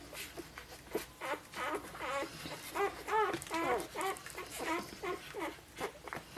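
Five-day-old Golden Retriever puppies squeaking and whimpering while nursing: a quick run of short, high squeaks, several a second, busiest in the middle.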